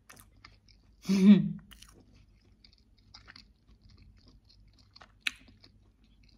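A person chewing a mouthful of pizza with faint, soft mouth clicks throughout. About a second in comes one short voiced sound, and a little after five seconds a single sharp click.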